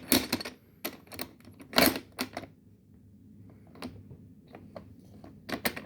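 Plastic lid clasps on a Numatic hazardous-dust vacuum cleaner clicking and clacking as they are worked by hand. The clasp being shown doesn't grip or seal the lid. There are a few sharp clacks in the first two and a half seconds, the loudest about two seconds in, then a run of clicks near the end.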